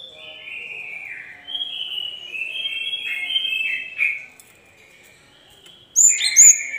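Cinereous tit (gelatik batu) calling: a run of short whistled notes, each sliding downward, for about four seconds. After a pause comes a louder burst of higher notes with a sharp click, about a second before the end.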